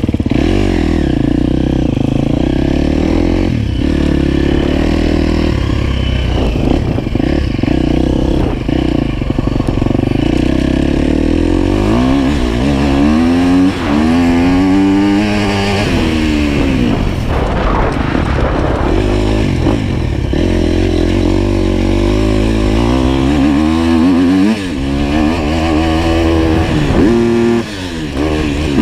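Dirt bike engine being ridden hard on a motocross track, heard close up from the bike. The revs climb and drop again and again as the rider opens and closes the throttle through the gears.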